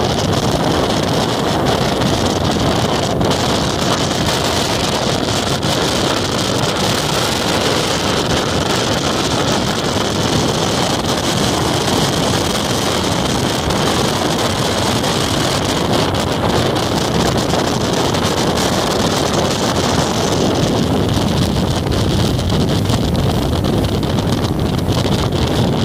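Steady wind rush over the microphone of a moving motorcycle, with the bike's engine and road noise from the wet pavement running underneath.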